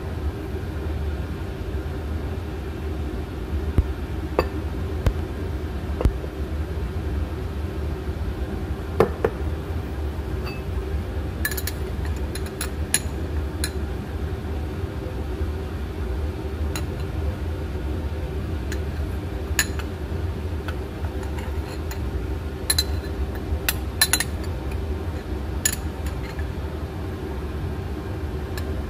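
A metal spoon clinking and tapping against a glass jar and glass bowl as flour is scooped into the sourdough starter: scattered sharp clinks, most of them in the second half, over a steady low hum.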